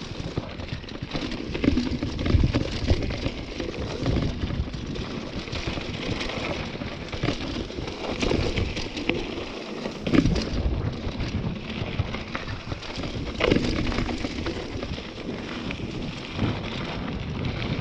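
Mountain bike descending a dry, rocky dirt trail: knobby tyres crunching over loose dirt and stones while the bike rattles, with sharper knocks over bumps about two seconds in, about ten seconds in and again near thirteen seconds.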